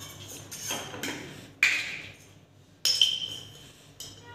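A kitchen utensil knocking against a kadhai: four sharp hits about a second apart, each ringing briefly, the middle two loudest.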